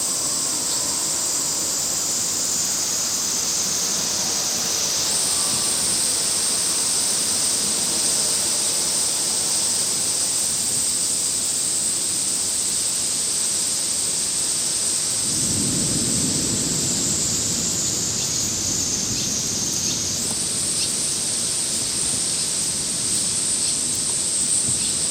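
Thunderstorm starting to rain: a steady high hiss, with a low rumble of thunder about fifteen seconds in.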